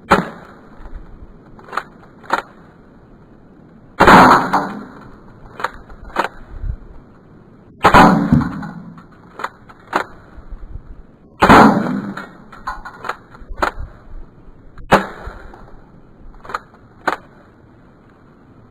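Stinger P311 spring airsoft pistol fired five times, about one shot every four seconds, each a sharp snap. Lighter clicks between the shots come from the slide being pulled back to cock it.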